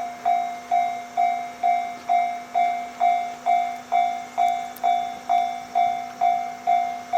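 Japanese level-crossing warning bell ringing in an even, steady rhythm of about two strokes a second, each stroke a bright tone that dies away before the next, signalling that a train is approaching or passing.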